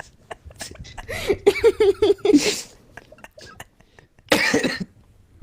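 A person's wheezing laughter: a run of breathless, pitched wheezes between about one and two and a half seconds in, then a short harsh gasping breath about four seconds in.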